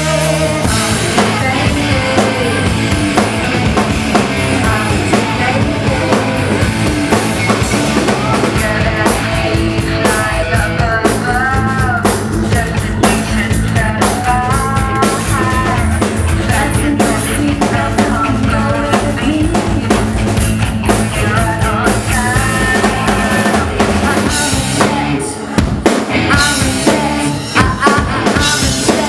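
Rock band playing live: an instrumental stretch driven by a full drum kit, with a melodic lead line bending in pitch over it. The band drops back briefly near the end, then comes in again with drum hits.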